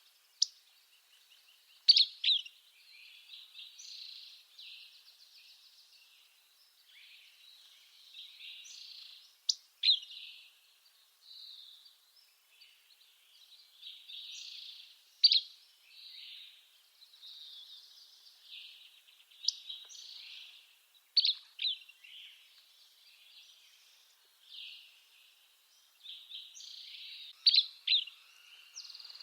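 Buff-breasted flycatcher singing sharp, high two-note phrases, repeated every few seconds, over fainter continuous twittering.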